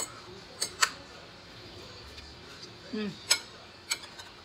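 Metal fork clinking against a plate, four sharp clinks spread out with pauses between them. About three seconds in there is a brief vocal sound falling in pitch.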